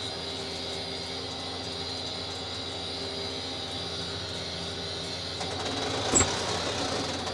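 Tractor running steadily while pulling a grass tedder. About six seconds in there is a single sharp bang: the tedder's dog clutch slipping as a lump of grass too big for it goes through.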